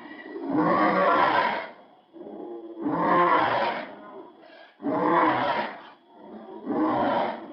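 Lion roar sound effect in a low voice: four roars about a second long each, coming roughly every two seconds.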